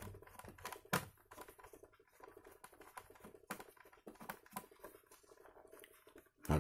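Faint, irregular small clicks and ticks of a screwdriver working the screws out of a plastic laptop's bottom cover, with a sharper click about a second in.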